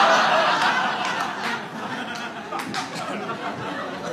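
Audience laughing, loudest at first and dying down over the next couple of seconds into scattered chuckles.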